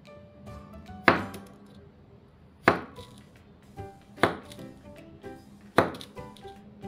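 Knife chopping down through kinetic sand and knocking on the table beneath, four sharp strokes about a second and a half apart.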